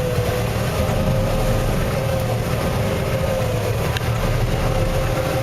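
Combine harvester running steadily in a soybean field: a deep rumble with a steady whine.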